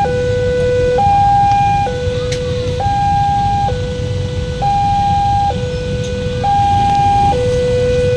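Railway level-crossing warning siren sounding a steady two-tone hi-lo wail, switching between a high and a low note about every second, over a low rumble.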